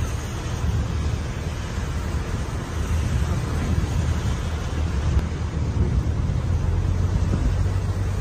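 Thunderstorm with heavy rain: a steady hiss of rain over a continuous low rumble.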